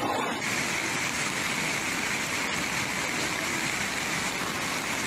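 Fast-flowing floodwater rushing in a steady, noisy stream; the sound changes abruptly about half a second in.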